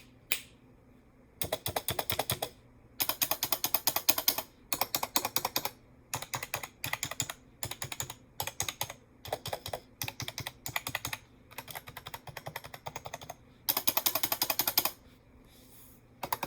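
Keys of a budget 60% mechanical keyboard being pressed rapidly, clacking in short bursts of about a second with brief pauses between; the loudest burst comes near the end. The keycap sound is one the owner calls ugly.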